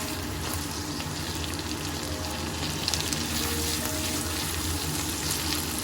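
Chopped tomatoes and spice paste frying in oil in a pan: a steady sizzle with constant small crackles. A faint low hum runs underneath.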